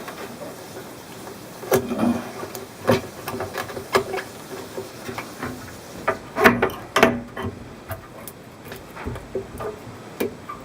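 A blade scraping and cutting old silicone from the glass seams of an aquarium tank, with irregular clicks and short scrapes of metal on glass. The loudest cluster of clicks comes about six to seven seconds in.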